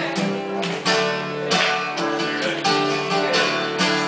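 Acoustic guitar strummed in a steady rhythm, full chords ringing with a new stroke about every two-thirds of a second.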